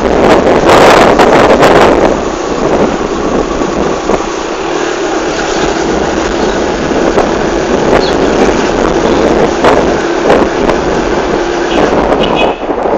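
Wind buffeting a phone's microphone while riding along a street, with a vehicle engine running underneath. It is loudest during the first couple of seconds.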